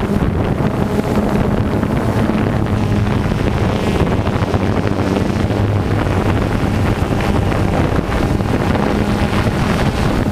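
Radio-controlled off-road cars running on a dirt track, their motors buzzing steadily, with wind noise on the microphone.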